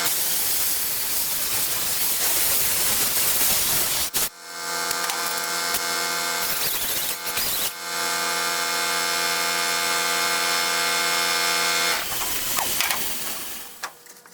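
Electric power tool working the patched sheet metal of a car body: a steady motor whine in stretches, broken twice by several seconds of harsh grinding noise, dying away near the end.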